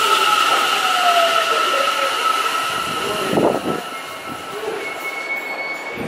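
Tokyo Metro 10000 series train braking to a stop at a platform: a high steady wheel and brake squeal with a motor whine falling in pitch as it slows. The sound dies down about four seconds in as the train halts.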